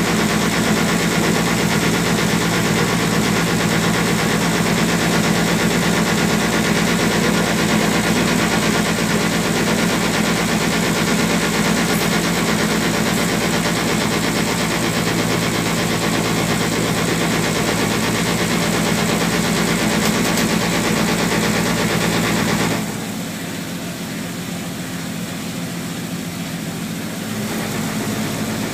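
Small passenger ferry's engine running steadily under way, a low even hum with wash and hiss over it. About three-quarters of the way through, the sound drops suddenly to a quieter level, then rises a little near the end.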